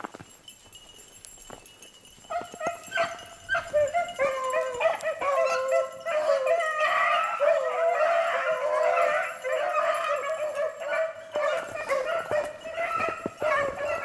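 Beagles baying together, several overlapping voices starting about two seconds in and carrying on without a break: hounds giving tongue as they run a rabbit's scent trail.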